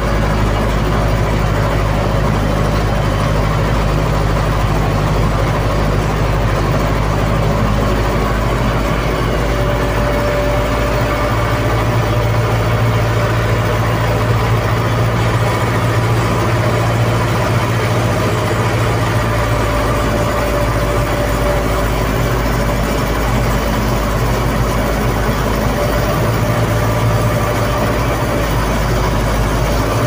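Engine of a snow-plough vehicle running steadily under way, heard from inside its cab.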